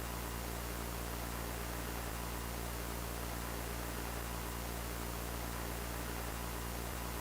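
Steady analogue static hiss with a low electrical mains hum under it, unchanging throughout, like the dead-air noise of a VHS or analogue broadcast signal.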